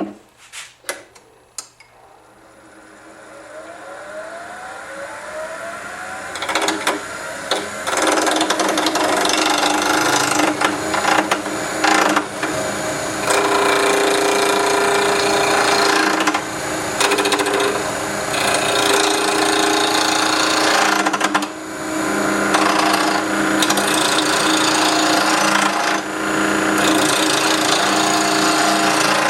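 A few sharp clicks, then a wood lathe spinning up with a faint rising whine. From about six seconds in, a turning tool cuts into a spinning stabilized buckeye burl pen blank, making a loud, rough, continuous cutting noise over the steady hum of the lathe.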